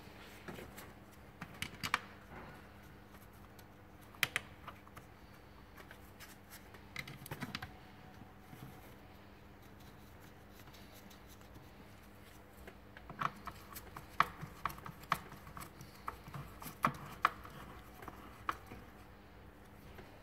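Scattered clicks and taps of a T15 Torx screwdriver and its screws being refitted into the engine control unit's mounting on the air filter box, thickening into a run of quick ticks in the second half. A faint steady hum sits underneath.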